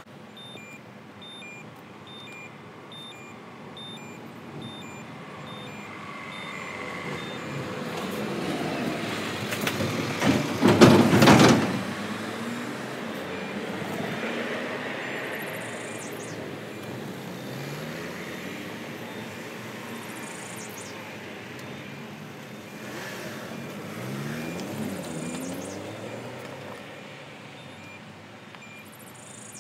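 GBRF Class 66 diesel locomotive working slowly with empty cement tank wagons: a low engine rumble with gently changing pitch. A loud rush builds to a peak about eleven seconds in, and short electronic beeps repeat about twice a second through most of it.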